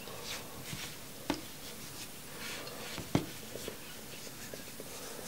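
Faint rustling and rubbing of cotton wicking being torn and twisted between the fingertips, with two sharp taps, one about a second in and a louder one about three seconds in.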